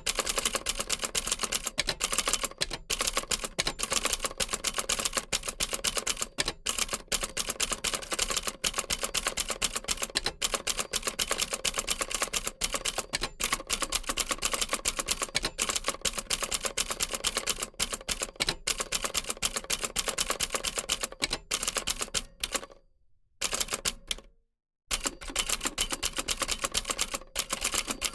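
Old typewriter typing steadily, a rapid, continuous run of key strikes that cuts out twice briefly a few seconds before the end.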